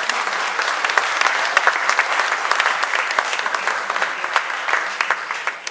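Audience applauding: many hands clapping in a dense, steady patter that tails off near the end.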